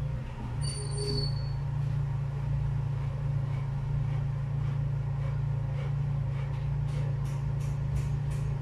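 A steady low mechanical hum from a running machine, with light ticks about three a second starting near the end.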